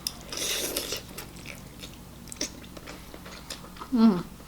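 A bite into a puffed onion-flavoured snack, followed by chewing with small mouth clicks. A short falling vocal 'mm' comes near the end.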